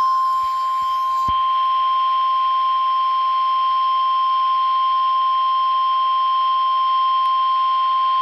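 NOAA Weather Radio's 1050 Hz warning alarm tone: one loud, steady, unbroken tone. It signals that a warning broadcast follows, here a flash flood warning.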